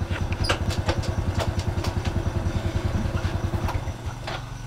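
Small underbone motorcycle's engine idling with a quick, even putter, over which come a few sharp clicks and knocks; the engine sound stops about four seconds in.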